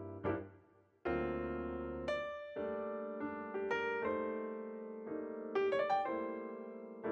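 Background music: piano notes and chords struck one after another and left to fade, with a short pause about a second in.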